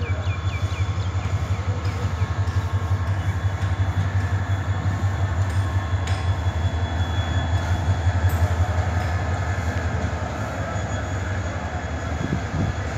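Diesel-hauled passenger train passing: the locomotive goes by, followed by a long, steady rumble of the coaches' wheels running on the track.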